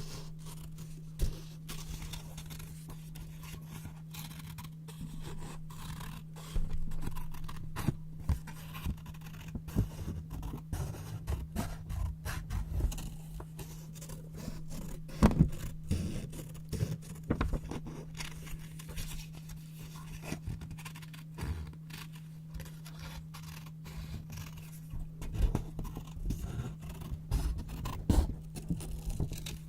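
Scissors cutting white paper: an irregular run of crisp snips and paper rustling, with a few louder cuts midway and near the end.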